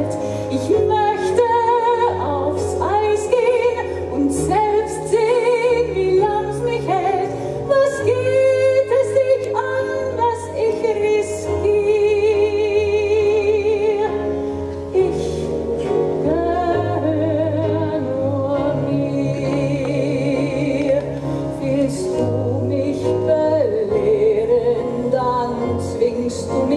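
Live orchestra playing with a woman singing, her voice carrying a wide vibrato.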